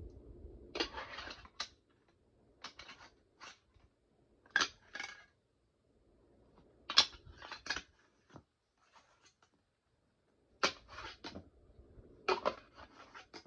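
A bare plastic fingerboard deck, with no trucks or wheels, clicking and clattering against plastic fingerboard ramps in six short bursts of sharp taps, a second or two apart, as tricks are tried with the fingers.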